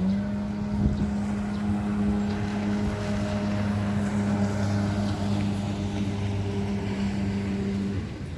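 A motorboat engine running at a steady speed, holding one pitch, then cutting off about eight seconds in.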